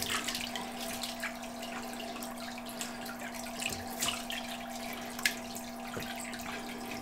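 Water trickling and splashing in a fish tank, with scattered drips and splashes over a steady hum.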